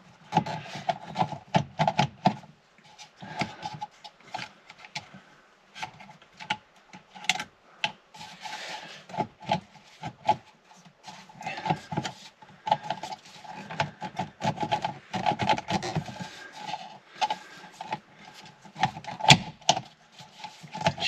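Hand tools and plastic trim working on a car's steering column as screws are undone and parts handled: irregular clicking and scraping throughout.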